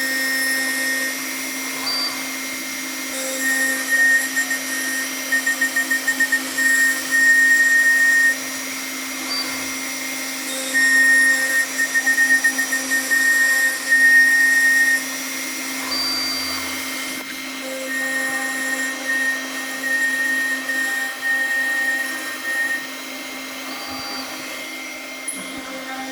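Marble CNC router running with a steady hum and whine, and a brighter tone that comes and goes in stuttering stretches of a few seconds.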